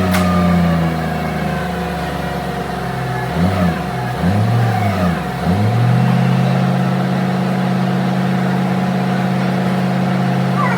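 Forklift engine running, revving up and down three times in quick succession about halfway through, then holding a steady higher speed, as it works a heavy load. A sharp click comes right at the start.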